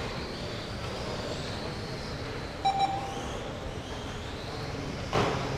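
High whine of GT12 1/12-scale electric RC cars' motors rising and falling as they lap, with a short beep from the lap-timing system about two and a half seconds in and a brief sharp noise near the end.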